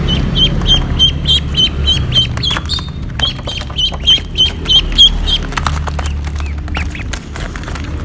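Ducks calling: a quick series of short, high calls, about three a second, that breaks off briefly about three seconds in and then resumes, followed by scattered fainter calls over a low steady rumble.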